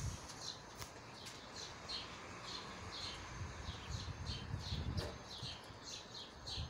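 A bird chirping over and over, short falling chirps about twice a second.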